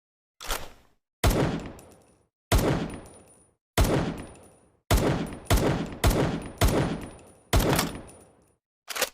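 Homemade sound effect imitating M1911 pistol shots: about nine sharp bangs, the first fainter, each ringing out for about a second, coming at irregular intervals of roughly half a second to a second. A short sharp click comes near the end.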